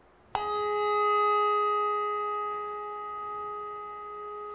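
A brass handbell struck once about a third of a second in, its tone ringing on and slowly fading. It is tolled as a memorial bell for one of the departed.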